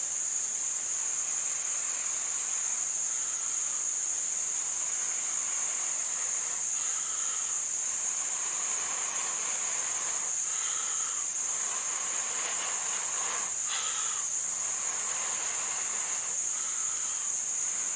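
Repeated long breaths blown into a smoking, rather wet tinder bundle around a lit chaga ember to coax it into flame, each a soft hiss lasting about a second. Behind them is a steady high-pitched drone of insects.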